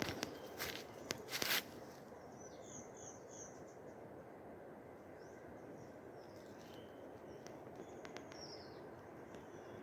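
Small birds chirping in short runs of quick notes, twice, over a faint steady hiss of outdoor background. A few sharp clicks come in the first second and a half.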